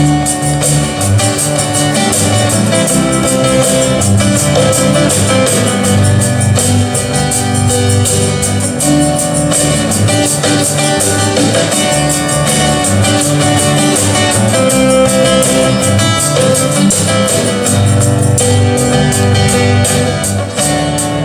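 Acoustic guitar strummed in a steady rhythm over low changing notes, an instrumental passage of a live song with no singing.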